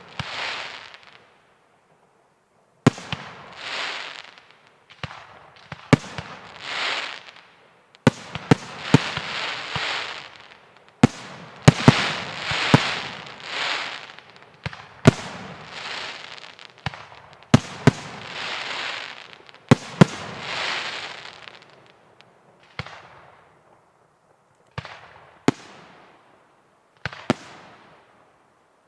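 Fireworks display: aerial shells bursting one after another in irregular succession, each sharp bang followed by a hiss that swells and fades over a second or two. The bangs come thickest in the middle, with several close together, and thin out near the end.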